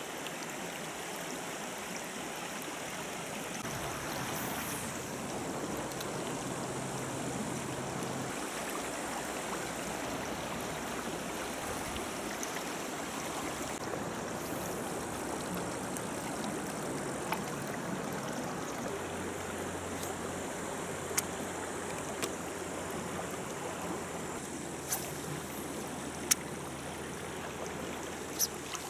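Shallow river running over riffles: a steady rush of flowing water, with a handful of sharp clicks in the second half.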